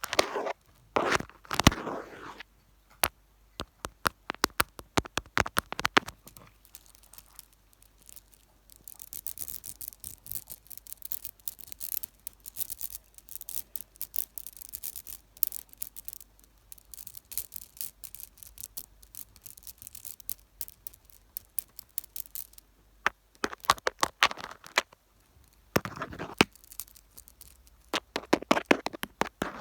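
Fingers tapping, scratching and rubbing directly on a camera, close on its built-in microphone. First comes a run of sharp taps. From about nine seconds in there is a long stretch of fine, hissy scratching, and near the end a few heavier rubbing strokes.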